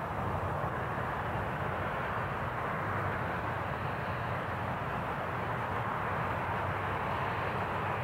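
Steady outdoor background noise: an even, continuous rumble with no distinct events.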